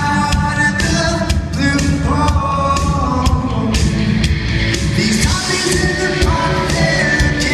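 Live rock band playing loudly: drums, guitars and bass under a sung melody, recorded on a phone.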